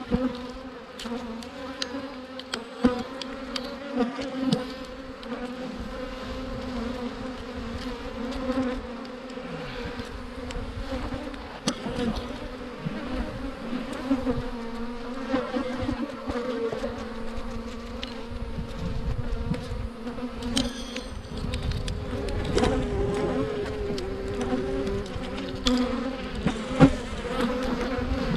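A mass of honeybees buzzing around an opened hive: a steady, dense drone, with occasional knocks and clicks.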